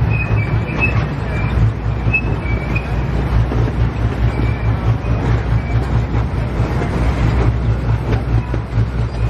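Miniature park train running along its track, heard from aboard: a steady low rumble of the train and its wheels on the rails.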